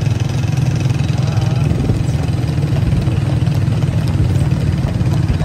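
Engines of several small commuter motorcycles running together at low road speed, a steady low drone with no let-up, with faint voices in the background.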